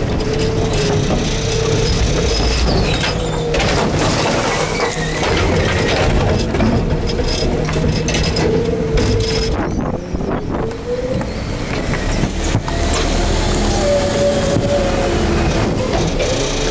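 Garbage truck's hydraulic packer compacting a wet load in the hopper: a steady machine rumble with a pump whine that rises and falls in pitch, and wind on the microphone.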